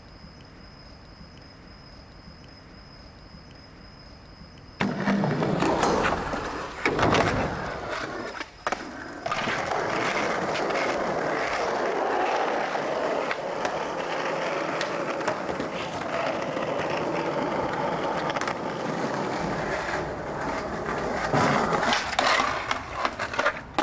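Skateboard wheels rolling loudly over rough street pavement, starting suddenly about five seconds in. Sharp clacks and knocks of the board against the ground come in a cluster just after it starts and again near the end.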